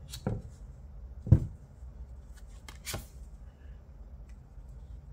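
Cards being handled and laid down on a board: a few light taps and clicks, the loudest about a second and a half in.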